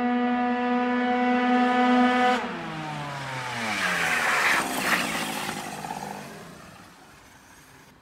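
Two-stroke Beta Ark scooter with a Malossi 70 cc cylinder and Malossi exhaust running flat out with a steady high-pitched note. About two and a half seconds in, the revs fall away in a sliding drop as it comes back past, and the engine sound fades out over the last couple of seconds.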